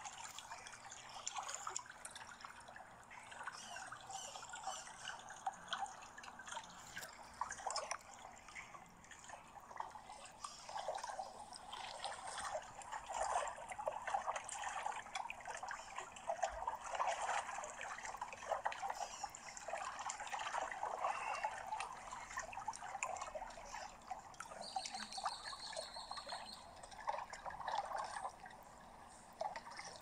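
Swimming pool water trickling continuously, a busy stream of small splashes and drips.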